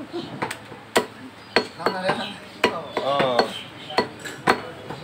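Butcher's cleaver chopping beef on a wooden log chopping block: about ten sharp chops at an uneven pace, roughly two a second.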